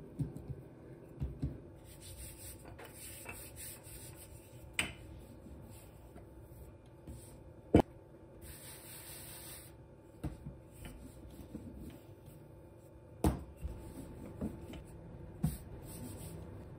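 Hands pressing and rubbing pastry dough on a floured countertop, with a few sharp knocks on the counter, the loudest about eight seconds in and another about thirteen seconds in.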